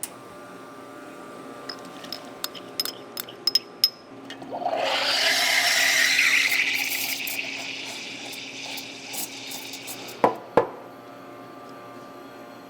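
Espresso machine steam wand frothing milk: a loud hiss with a rising, gurgling sweep as the milk stretches, fading away after about five seconds. Before it come light metallic clinks, and after it two sharp knocks.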